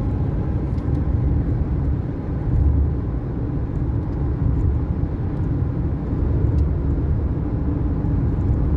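Car driving along a highway, heard from inside the cabin: a steady low rumble of road and engine noise.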